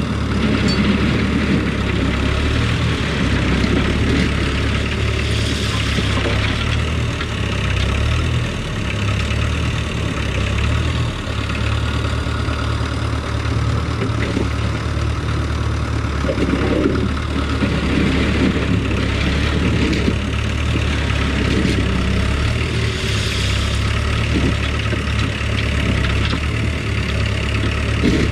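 Diesel engine of a compact machine running steadily close by, with a few brief louder bursts of working noise over it.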